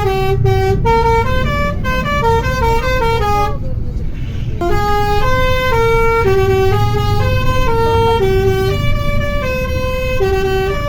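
Telolet horn of a bus, a set of musical air horns, playing a melody of quick stepped notes. It breaks off for about a second near the four-second mark, then starts a new tune of longer held notes, with a low vehicle rumble underneath.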